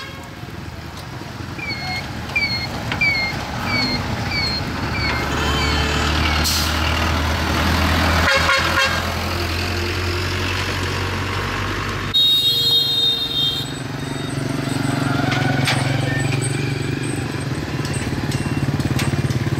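Road traffic passing: engines of vehicles going by, with a horn sounding briefly about twelve seconds in. Early on, a run of short falling chirps repeats about twice a second.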